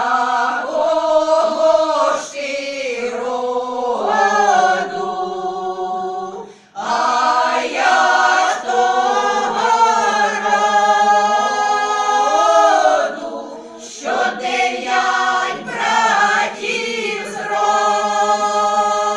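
Women's folk choir singing a Ukrainian folk song a cappella, in long held phrases with short breaks for breath about six and a half and thirteen and a half seconds in.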